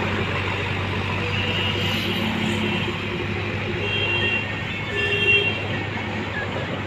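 JCB 3DX backhoe loader's diesel engine running steadily as the machine drives off, a constant low hum.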